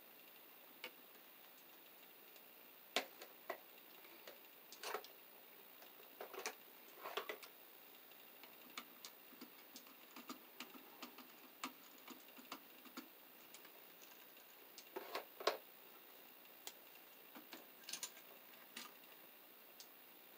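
Irregular small clicks and scrapes of hand tools and copper wire on a single-pole light switch as the wires are looped and tightened under its terminal screws with a screwdriver and pliers.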